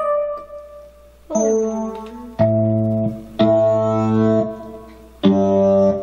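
Yamaha PSR-EW410 portable keyboard played slowly: a chord fades out, then four more chords are struck one after another, each held about a second and left to die away.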